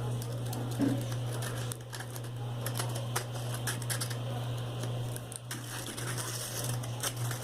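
Bicycle freewheel parts being worked by hand: light, irregular metallic clicks and rattles as the reverse-threaded piece is screwed back on over the ball bearing and spacer.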